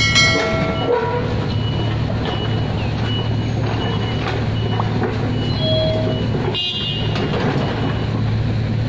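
Diesel engines of hydraulic excavators running steadily at a worksite, with a high warning alarm beeping about twice a second. A sharp knock about seven seconds in.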